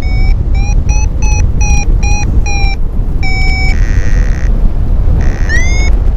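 A paraglider's variometer beeping over heavy wind rush on the microphone. It gives a quick run of short beeps about three a second for the first three seconds, then a single longer beep, and a rising chirp near the end, the pattern of weak, patchy lift.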